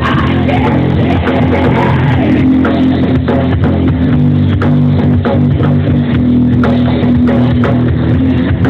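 A live rock band playing: guitar and bass over a steady drum-kit beat.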